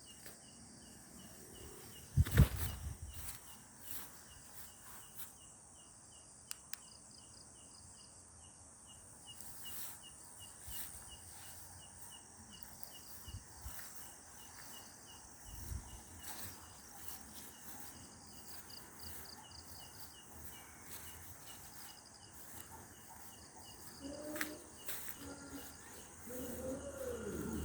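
Crickets chirping in a steady, even rhythm over a constant high-pitched insect drone. There is a loud thump about two seconds in, and near the end a low sound glides downward in pitch.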